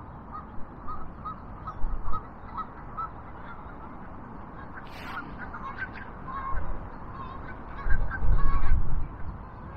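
Geese honking, a run of short repeated calls. A sharp click comes about five seconds in, and a low rumble near the end.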